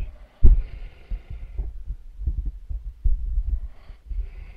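Irregular muffled low thumps, the loudest about half a second in, over a faint hiss.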